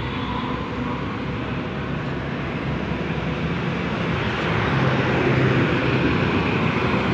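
A steady mechanical drone with a low hum, growing somewhat louder about four and a half seconds in.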